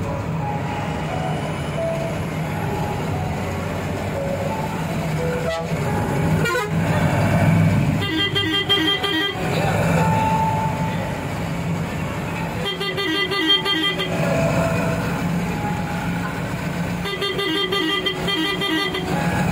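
Vehicle horn sounding three times in rapidly pulsing blasts, each a second or two long, over the steady drone of the engine and road noise inside a moving vehicle.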